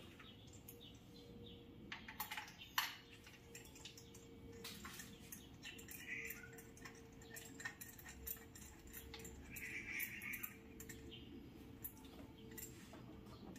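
Scattered, irregular light clicks and taps of tools and parts being handled during engine work, over a faint steady hum.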